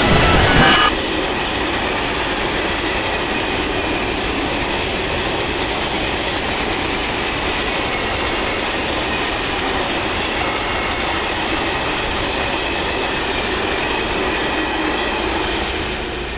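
A train passing close by. A high whining tone stops abruptly under a second in. After it comes the steady, even rushing rumble of the wagons rolling past, which eases off slightly near the end.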